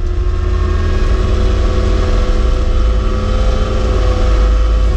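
Cat skid steer's diesel engine running steadily, a deep rumble with a steady whine above it.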